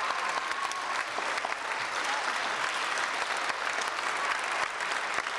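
Large audience applauding, steady dense clapping throughout.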